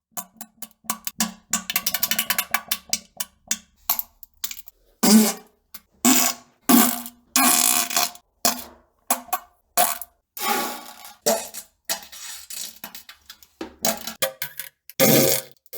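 A string of fart sounds played one after another with abrupt silent gaps between them. The first few seconds are a fast rattling run of short pops, and after that come separate longer blasts, many with a low buzz.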